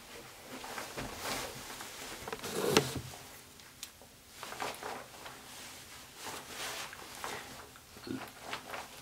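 Soft, irregular shuffling and clothing rustle from a person moving close to the microphone on carpet, with a louder rustle about three seconds in.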